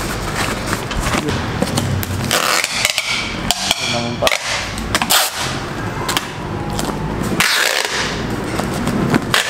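Packing tape ripping off a handheld tape-gun dispenser and being pressed onto a cardboard box, in repeated rasping pulls mixed with knocks and rustle from handling the box and bubble wrap.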